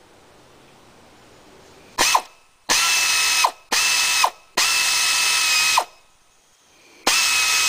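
Air ratchet running in five bursts, the first very short, as it backs out the 15 mm bolts holding the upper engine-mount bracket. Each burst is a steady high whine that drops in pitch as it cuts off.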